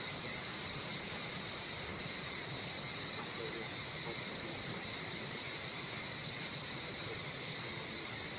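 Steady forest insect chorus: a continuous high-pitched drone, with a higher shrill layer that swells and fades about once a second.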